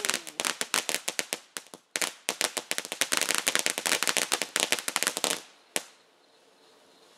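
Ground fountain firework spraying sparks with a rapid, irregular string of sharp crackling pops. The pops stop about five and a half seconds in, then one last single pop.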